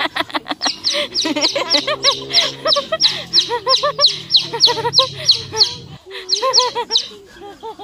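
Backyard flock of hens and ducks calling around a feeding bowl: a fast run of short, high chirps, about four or five a second, over lower clucking calls.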